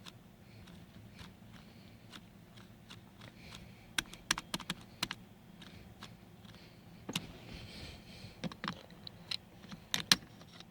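1997 Ford F-150 seat belt buckle being worked by hand, its latch and release mechanism clicking and snapping in a scatter of sharp clicks, bunched about four to five seconds in and again from about seven to ten seconds in. The buckle's release spring has just been freed by prying a part out.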